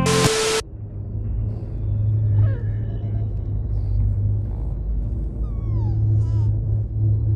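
Steady low rumble of a spaceship's engines heard inside its cockpit, a film sound effect, with a few short high chirps that fall in pitch about two and a half seconds in and again near six seconds.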